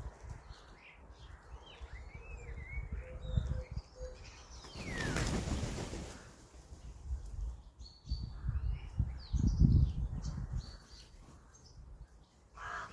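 Small garden birds chirping and twittering in short calls around a feeder. A rushing swell comes about five seconds in, and low bumps and rumbles follow about eight to ten seconds in.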